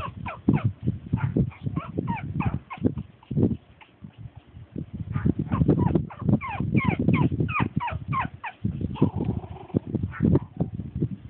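Pug puppies play-fighting, giving many short, high squeaky yips that fall in pitch, in quick runs. Low scuffling thumps run underneath.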